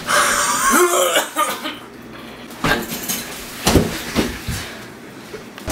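A young man in a staged choking fit, squeezed in a Heimlich-style hold: a strained, gasping cry in the first second and a half, then three hard coughs.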